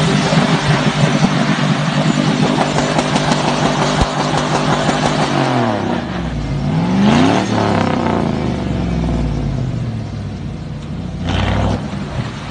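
Pickup truck engine revving hard while its tyres spin in loose sand, with a steady hiss of spraying sand. About six seconds in the revs drop and climb again, then ease off, with one brief burst of throttle near the end.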